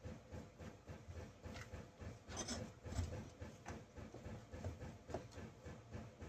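Faint irregular clicks and small knocks of hand tools and parts on a partly dismantled chainsaw, with a brief scrape about two and a half seconds in and a louder knock just after.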